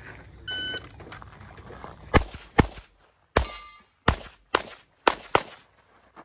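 Electronic shot timer beeps once, a short steady tone giving the start signal. About two seconds later a pistol fires seven shots over some three seconds, a quick pair and then singles and pairs; one shot is followed by a short metallic ring.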